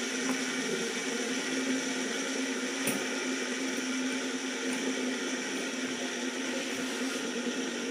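Two fidget spinners spinning on a hard tabletop, their ball bearings giving a steady whirring hum, with a light tap about three seconds in.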